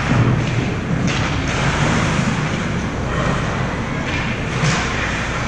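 Ice hockey rink din: a steady, echoing rumble of the arena during play, with a few brief sharper sounds from the game on the ice.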